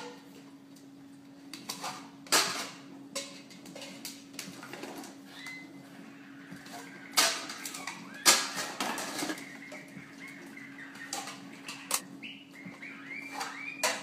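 Light plastic cups being tossed by a cockatoo and landing on a hard floor one at a time: several separate clattering knocks spread out over a steady low hum, with short high squeaks near the end.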